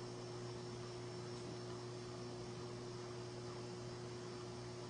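Steady electrical hum, a low drone with a fainter higher tone, over a soft hiss.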